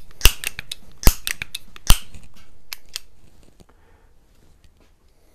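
Sharp metallic clicks from working a vintage Crosman Model 130 pump pellet pistol: three loud clacks about a second apart, then a few lighter ticks that die away about halfway through.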